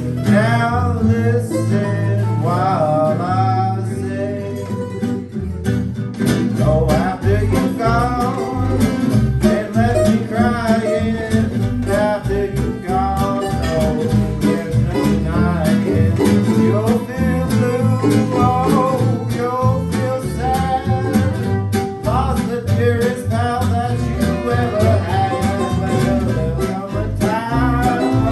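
Acoustic string band playing an instrumental swing break: fiddle taking the lead melody over strummed acoustic guitars and a walking upright bass.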